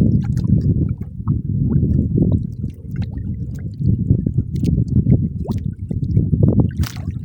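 Loud low rumble of water churning and slapping against a small boat, with scattered light clicks over it.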